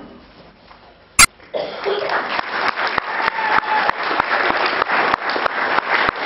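Audience applause breaking out about a second and a half in, after the school concert band's last brass note has faded away. A single sharp click comes just before the clapping starts.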